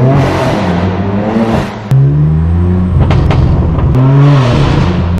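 BMW M4 F82's twin-turbo straight-six, straight-piped with an AWE Track exhaust and a Stage 2 tune, revving up and down several times, with a sudden loud surge about two seconds in and a couple of sharp exhaust cracks just after.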